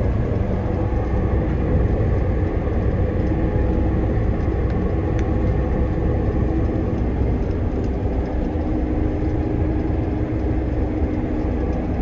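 Fendt Ideal combine running steadily while harvesting canola: a constant low machinery hum of engine and threshing drive, with a few steady tones, heard from inside the cab.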